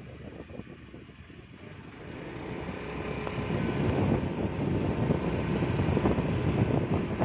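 Wind rushing over the microphone with the engine and road noise of a moving motorcycle or scooter, swelling louder from about two seconds in.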